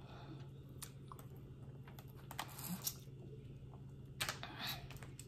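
Close-up eating sounds: chewing with scattered sharp clicks and short crackles of crawfish shells being peeled, over a low steady hum.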